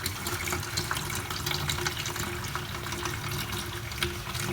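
Water running steadily from a tap, splashing as it fills a container.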